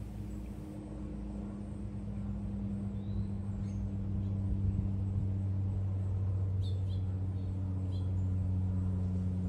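A steady low mechanical hum, like a motor or engine running, that grows slightly louder, with a few faint bird chirps.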